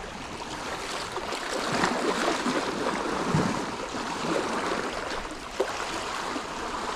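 Sea water washing and lapping against shoreline rocks, swelling and easing, with a brief knock about five and a half seconds in.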